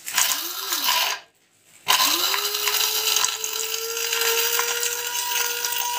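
A 300 W CPEX SZJ-1306 stainless-steel mini spice grinder grinding cashews. A brief pulse spins the motor up and lets it wind down within a second, since it stops the moment its push-button is released. After a short pause the motor starts again and runs on at a steady whine while the nuts clatter inside.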